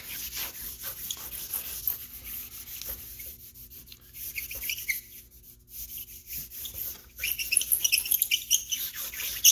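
Vine charcoal scratching across drawing paper in quick back-and-forth shading strokes, laying in a dark background tone. The strokes thin out around the middle, then come back busier and squeakier near the end.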